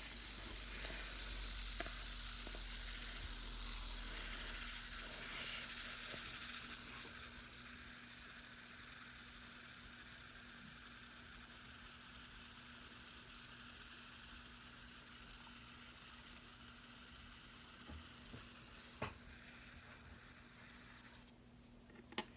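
Silicone fidget spinner whirring on its bearing with a steady hiss that slowly fades as it winds down, stopping about 21 seconds in. A couple of faint clicks come near the end.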